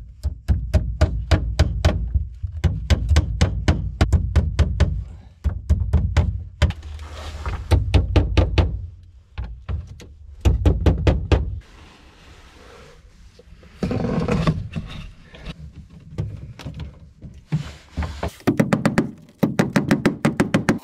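Rapid hammer taps on wood, about five blows a second, in short runs with pauses between: cable staples being driven to tack electrical cable to the board wall of a wooden bin, which booms under each run.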